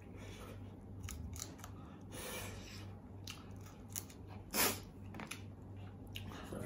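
Fried chicken being torn apart by hand and eaten: scattered small crackles of crisp skin and chewing, with one louder crunch about four and a half seconds in.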